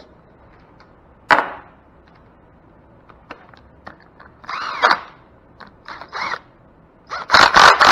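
Charge pump cover bolts being run down with an impact wrench on a long socket extension. A metal clink comes about a second in, then short bursts of the tool spinning with a rising-and-falling whine, and near the end a loud rapid hammering as the bolts seat.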